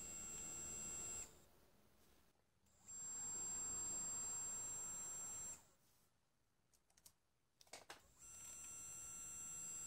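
Stepper motors of a Tokyo Electron wafer transfer robot, driven by a stepper driver from an Arduino, moving the robot's axes: a steady high whine in three runs of a few seconds each with pauses between, and a few faint clicks in the second pause.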